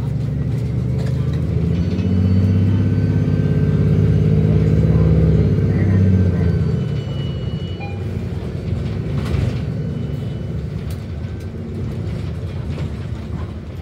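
City bus engine and drivetrain heard from inside the bus as it pulls away and accelerates. A loud low drone builds in the first couple of seconds and eases off about seven seconds in, leaving a steadier low rumble of driving with road noise.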